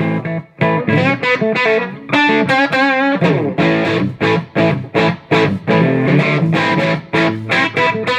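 Electric guitar on its bridge humbucker played through a restored 1939–40 Gibson EH-185 tube amp, turned up: picked single-note lead lines with string bends and vibrato.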